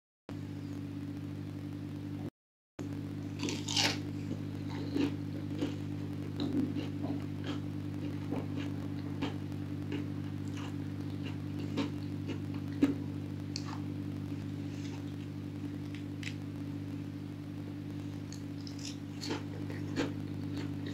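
Irregular crisp crackles and crunches of a crispy breaded fried potato ball being bitten and chewed, a denser burst about four seconds in, over a steady low hum.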